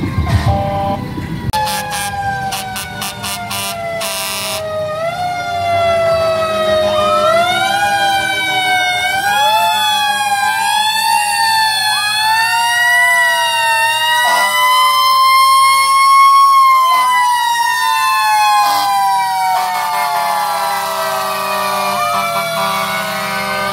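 Several fire truck sirens sounding at once, their overlapping wails sliding slowly up and down in pitch.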